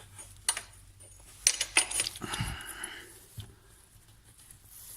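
A few sharp metallic clicks and clinks of hand work on engine parts, with a brief rustling scrape about two seconds in.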